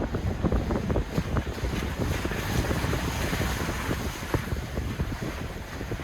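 Wind buffeting a microphone on a moving car, over a steady low road rumble, with a rushing hiss that swells about two seconds in and fades again before the end.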